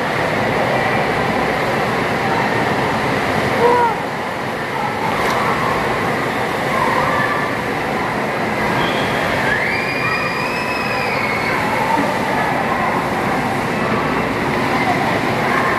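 Steady rush of water in a water-park pool, with splashing, distant voices and a child's high call about ten seconds in.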